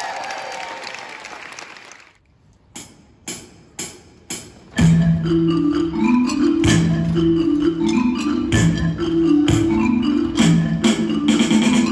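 A school percussion ensemble with marimba-type mallet instruments. A ringing sound dies away over the first two seconds, four sharp clicks follow about half a second apart, and about five seconds in the ensemble comes in loudly with sustained rolled notes and changing chords.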